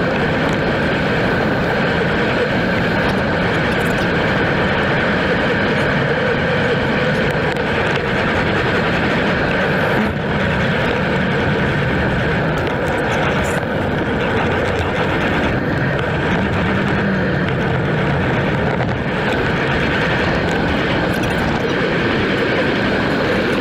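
Steady wind rush on the microphone and road noise from a road bike riding at speed on a paved path.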